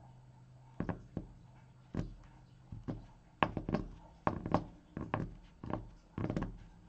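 Irregular light taps and clacks of a stack of trading cards in hard plastic holders being handled in the hands, about a dozen short knocks over several seconds.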